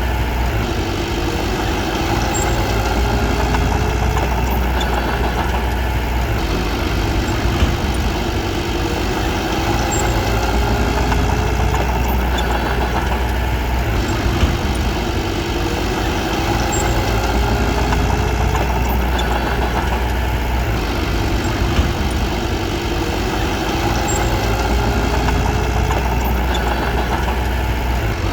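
Diesel engine of a small bulldozer running steadily, with a few brief knocks over the din.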